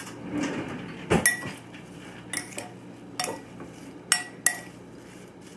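Metal spoon clinking against a glass mixing bowl while sliced strawberries are tossed with sugar: about five separate, sharp clinks, each with a short ring.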